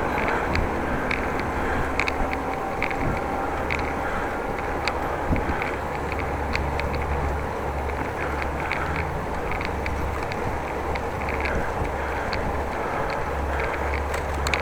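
Riding a bicycle: steady wind on the microphone and road rumble, with irregular light clicks and rattles throughout.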